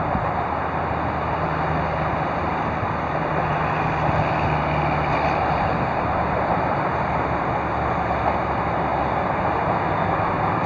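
A vehicle engine running steadily, a low hum under an even rushing noise.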